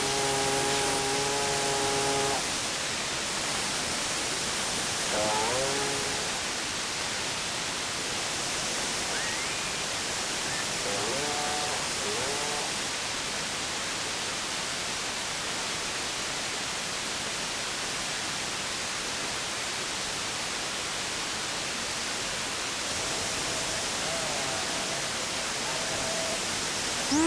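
CB radio receiver hiss: steady static and band noise from the speaker during a skip opening. A steady tone sounds for the first two seconds, and faint fragments of distant stations break through the static a few times.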